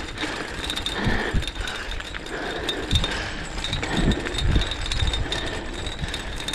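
Travel noise from moving fast down a gravel, leaf-strewn trail behind a running dog: a steady rough rumble broken by irregular heavy thumps.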